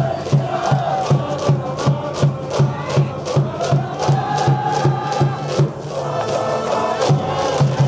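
School cheering section at a baseball game: a band plays a held, marching melody over a steady drum beat of about three strokes a second, with the crowd chanting along.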